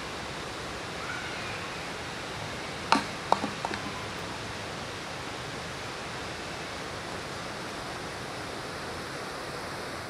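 A plastic bottle lands on gravel with a sharp clack about three seconds in, then bounces and rattles a few more times over the next second, over a steady hiss.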